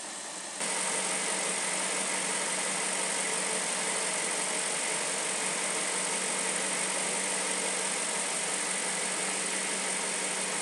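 BMW M62TU 4.4-litre V8 idling steadily: an even engine hum with hiss, a little louder from about half a second in. The engine runs smoothly while its per-cylinder rough-running values are read.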